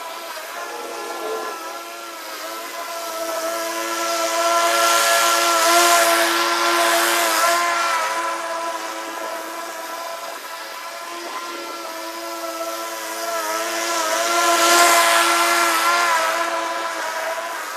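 Gas walk-behind lawn mower running steadily and cutting grass, with a steady whine and slight dips in pitch under load. It grows louder twice, about five seconds in and again near the end, as the mower comes close.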